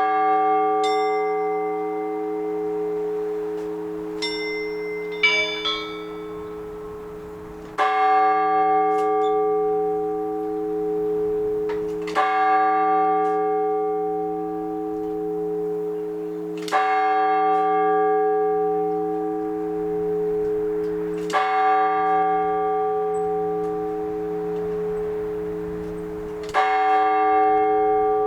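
Orthodox church bells: the large bell is struck five times at a slow, even pace, about every four and a half seconds, and each stroke rings on with a long, steady hum. A few strokes of smaller, higher bells sound near the start.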